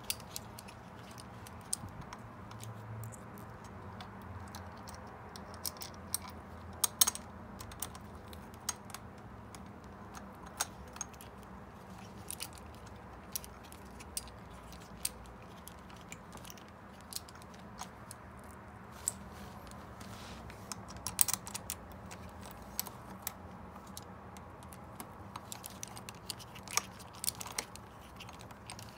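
Hands working on a bicycle's handlebar and stem: scattered small clicks and taps at irregular intervals as the parts and cables are handled.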